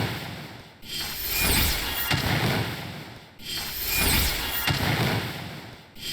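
A short noisy sound effect looped over and over, each repeat swelling up and fading away about every two and a half seconds, with a rubbing, scraping quality and a faint high falling whistle in each repeat.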